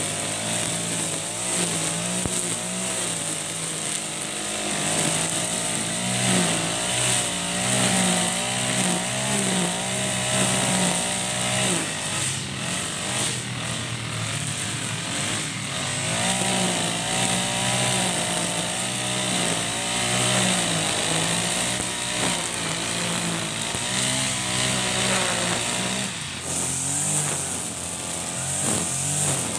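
Backpack brush cutter with a GX35 four-stroke engine running at cutting speed, its engine note rising and falling over and over as the spinning nylon line slashes through grass.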